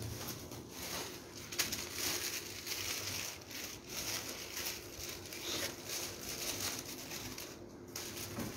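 Kites' thin sails rustling and crinkling as they are picked up, slid across cardboard and stacked by hand, with small irregular crackles throughout.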